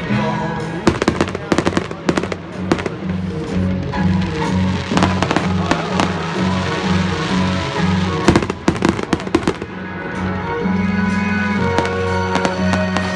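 Aerial fireworks going off in clusters of sharp bangs and crackles, about a second in, around five seconds in and again around eight to nine seconds in, over loud music with a pulsing bass line.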